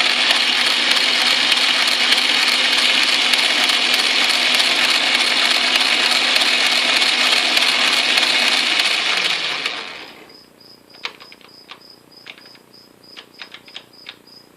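Atlas QC42 lathe running with its tumbler and change gears engaged: a loud, dense gear-train clatter over a steady motor hum, still a little grumbly, which the owner puts down to too much play in the tumbler gears. About nine seconds in the motor is switched off and its hum falls as it spins down, followed by a few light clicks.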